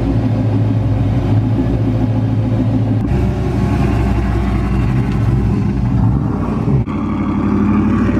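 Lowered Chevrolet pickup trucks' engines running with a steady deep exhaust rumble. The sound changes abruptly about three seconds in and again near seven seconds.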